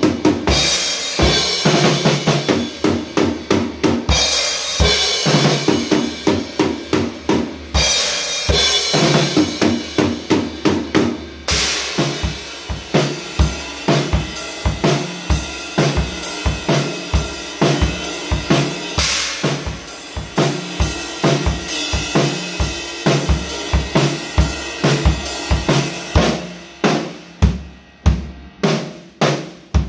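Drum kit played solo: fast beats and fills on snare, toms and bass drum, with cymbal crashes ringing through the first half. In the last few seconds the cymbals drop out and the strikes come as separate hard hits with short gaps between them.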